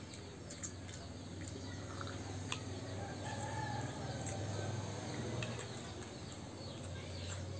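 Faint bird calls in the background over a low steady hum, with a few light clicks of metal spoons against plates.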